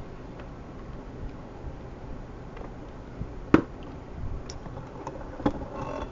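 Scattered light clicks and taps of small items being handled on a workbench, with one sharp click about three and a half seconds in and another about two seconds later.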